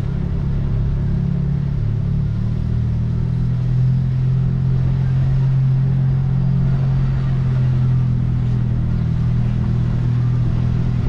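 Car engine running low and steady at crawling speed, its pitch shifting slightly about two seconds in.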